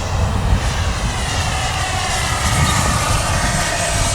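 3D-printed RC model Cessna A-37 Dragonfly jet in flight, the whine of its electric ducted fan sweeping in tone as it flies past, over wind rumble on the microphone.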